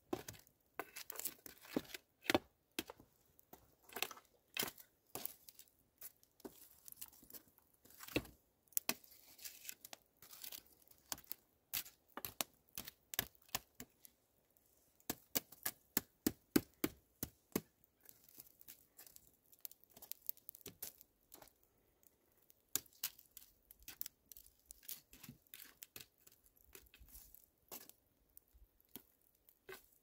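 Wood fire crackling, with many sharp, irregular snaps coming in clusters, as a stick pokes and shifts the burning wood and coals.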